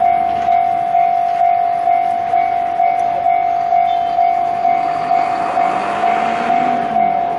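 Railroad level-crossing warning bell ringing steadily at one pitch, about two strikes a second. Underneath, a diesel locomotive's engine runs, its note rising briefly a little past halfway.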